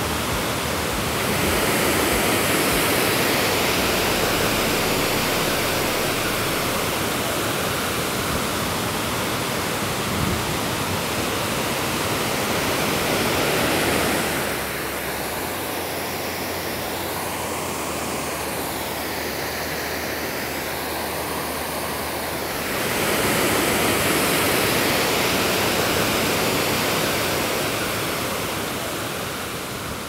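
Mitte Waterfalls' wide cascade roaring: a steady rush of falling water. It grows quieter and thinner for several seconds about halfway through, then swells back up.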